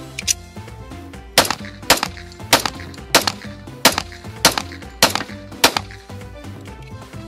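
Eight shots from a semi-automatic pistol, fired at a steady pace of nearly two a second, starting about a second and a half in, over background music.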